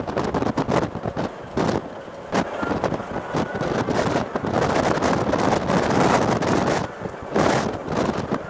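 Wind buffeting the microphone of a camera held out of a moving jeep, in uneven gusts with sharp crackles, over the vehicle's running noise.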